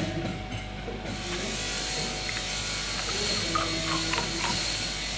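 Steady hum and air hiss of a liquid filling machine, with a few faint metallic clicks as a filling nozzle is fitted by hand. The hiss drops out briefly near the start.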